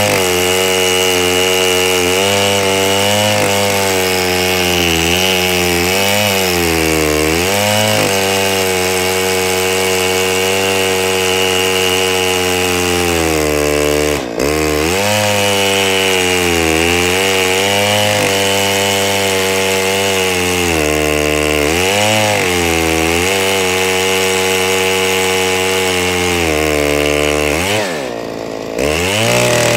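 Chainsaw on a chainsaw mill running at high revs under load, ripping lengthwise through a log. The engine pitch sags and recovers every few seconds as the cut loads it, dips sharply about halfway through, and drops deeper near the end with a brief fall in loudness before picking back up.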